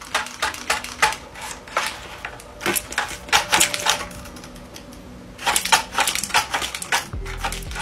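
Stiff folded paper crackling and clicking in quick, irregular bursts, busiest around three to four seconds in and again around six seconds in.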